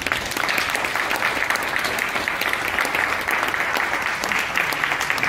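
Audience applauding, a dense clatter of many hands clapping that starts suddenly and keeps up steadily.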